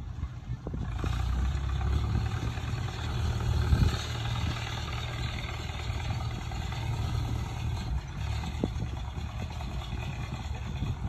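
An old four-wheel-drive tractor's engine running as it drives over a heap of loose dirt. It gets louder from about a second in for a few seconds, then holds steady.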